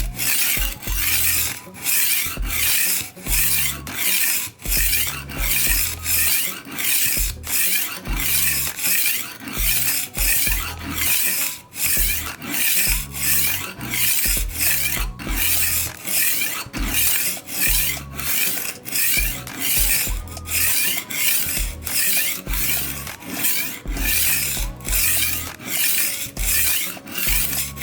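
HORL rolling knife sharpener's disc rolled back and forth against a knife edge: a steady rasping grind on each stroke, about two strokes a second.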